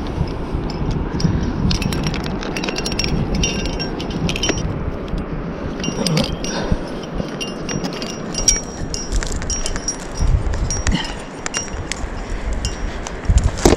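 Metal climbing gear racked on a harness, carabiners and nuts, clinking and jingling in many small chinks as the climber moves up the rock, over a low rumble of wind on the microphone.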